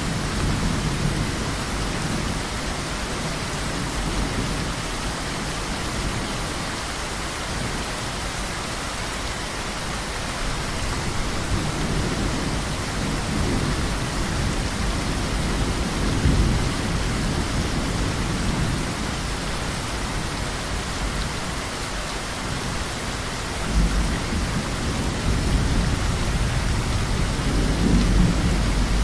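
Heavy rain falling steadily, with thunder rumbling low beneath it, swelling several times, most strongly about 16 seconds in and again near the end.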